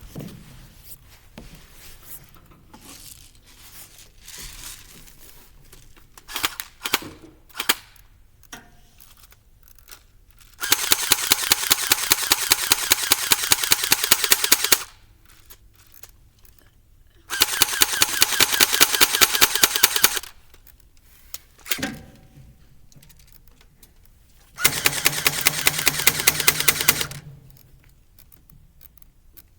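Airsoft gun firing on full auto in three long bursts of rapid shots, each lasting about three to four seconds, with a few single sharp clicks before and between them.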